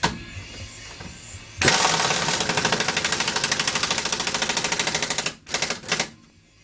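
Power impact wrench hammering in a fast, even rattle for about four seconds, then two short bursts, driving the bolts that push the rear hub off a Honda CR-V.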